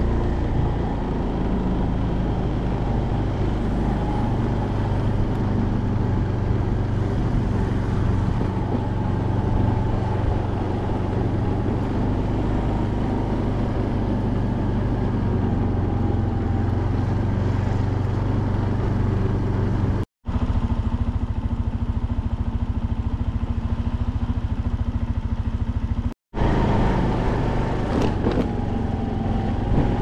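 Steady engine and road noise of a vehicle being driven at a low, even speed, with a constant low hum. The sound cuts out briefly twice.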